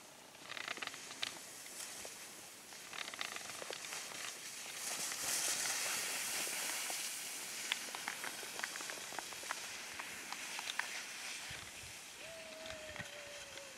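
Skis hissing and scraping over snow through a run of turns, loudest about five to seven seconds in, with scattered sharp clicks. Near the end a single tone holds and slides slightly down.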